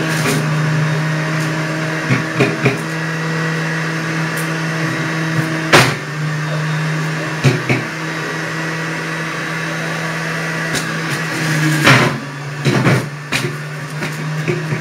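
Juiceman centrifugal juicer's electric motor running with a steady hum while fruit is pushed down the feed chute into the spinning grinding disc. Sharp knocks and crunches come through now and then, loudest about halfway through and again near the end.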